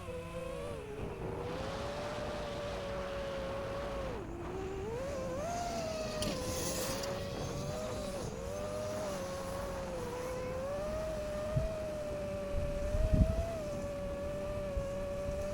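Brushless motors and propellers of a 5-inch FPV quadcopter whining steadily, the pitch dipping and rising as the throttle changes. Near the end there are two brief low thuds.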